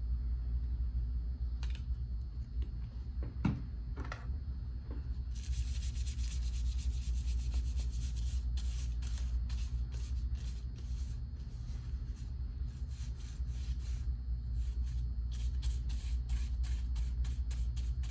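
Paintbrush stroking paint onto a paper plate, a run of repeated brushing strokes that begins about five seconds in, over a steady low hum.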